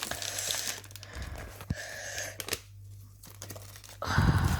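Plastic packet of dog biscuits being crinkled and torn open by hand, in rustling fits with a short pause about three seconds in and a louder burst of handling near the end.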